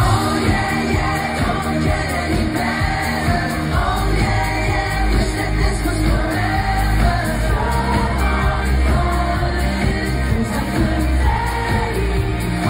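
Live pop band playing a song with sung lead vocals over strong bass, loud as heard from within a concert audience.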